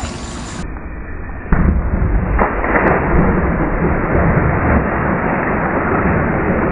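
Muffled churning and sloshing of pool water right at the camera's microphone as it is held at the water's surface, starting suddenly about a second and a half in.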